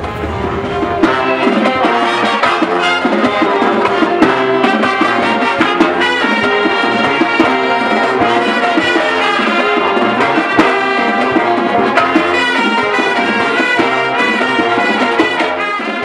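Pep band playing a tune on brass (trumpets and trombones) over drums keeping a steady beat.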